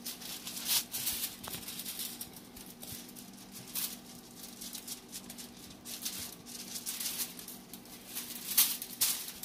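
Aluminium foil crinkling and rustling as gloved hands rub spice paste into a whole tilapia lying on it, with sharp crackles now and then, the loudest about a second in and near the end. A faint steady hum runs underneath.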